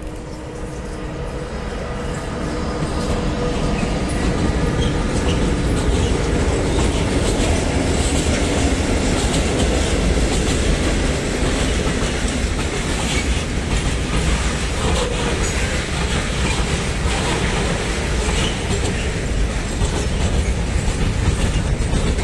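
ČD Cargo electric locomotive passing at speed with a long freight train behind it. A steady hum from the locomotive fades after the first several seconds, and the wagons roll by with wheels clattering over the rail joints. The sound grows louder over the first four seconds, then stays loud.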